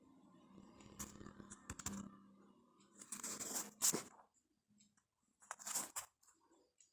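Packaging being handled close up: three bursts of rustling and crinkling, each a second or so long, with the loudest about halfway through.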